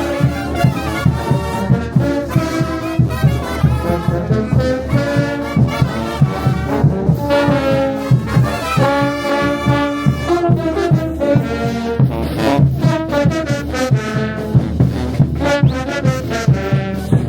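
Brass band playing, with trombones and trumpets carrying the melody over a steady drum beat.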